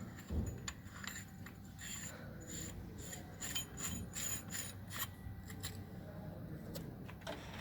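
Faint scattered metallic clicks and light scraping from tools and engine parts being handled during disassembly.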